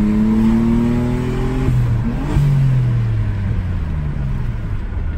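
Audi A6 engine heard from inside the cabin while driving: the revs climb as the car accelerates, there is a shift about two seconds in, and then the revs fall steadily as the car eases off.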